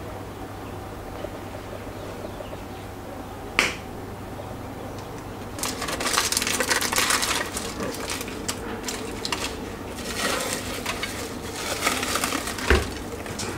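Aluminium foil crinkling as it is crumpled and pressed by hand around a glass bowl, in two spells, with a single short click a few seconds in and a dull thump near the end.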